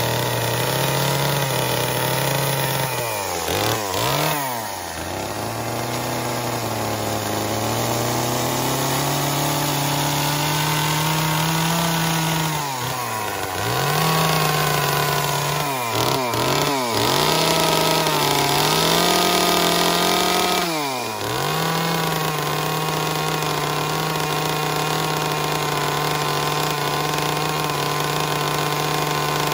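A chainsaw runs continuously while cutting into a wooden carving. Its engine speed falls off sharply and climbs back up several times, about 4, 13, 16 and 21 seconds in, and holds a steady high pitch in between.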